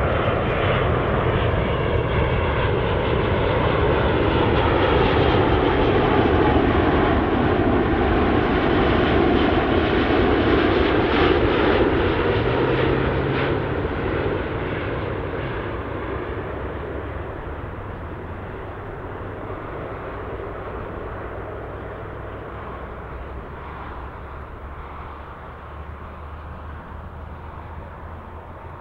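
Airbus A380 airliner on landing approach, its four jet engines running as it passes close by. The sound is loud for about the first twelve seconds, then fades steadily as the aircraft moves away toward the runway.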